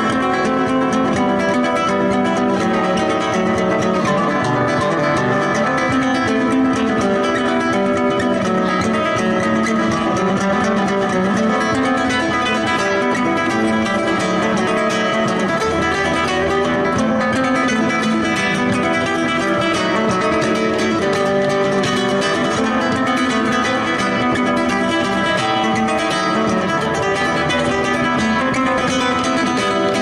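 Acoustic guitar music in a flamenco style, with quick plucked and strummed notes playing on without a break.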